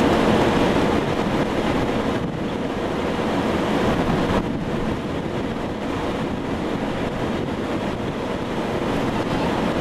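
Strong storm wind buffeting the camera microphone: a steady rushing noise with deep rumbling gusts that eases slightly about two seconds in.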